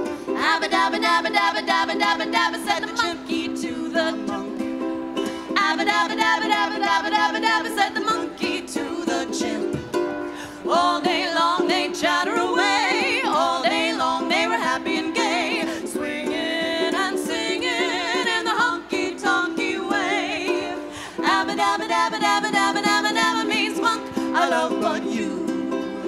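A ukulele strummed while two women sing an old-time song together, their voices wavering with vibrato.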